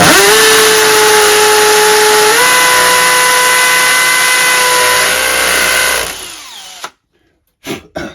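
Hammer drill running on its hammer setting, boring into a plastered wall after a pilot hole; the motor tone steps up slightly about two and a half seconds in, then the drill is released at about six seconds and winds down. Two short knocks follow near the end.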